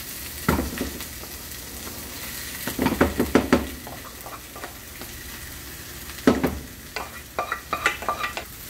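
Spoon knocking and scraping boiled diced potatoes out of a steel pot into a frying pan, over the steady sizzle of the frying tuna and vegetable filling. The knocks come in clusters, with one sharp knock about two-thirds of the way through.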